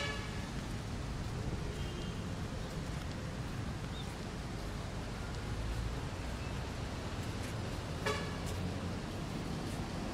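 A short honk of a vehicle horn about eight seconds in, over a steady low rumble of background noise.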